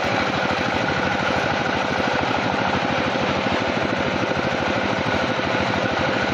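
An engine running steadily with a rapid, even pulse, as from sawmill machinery.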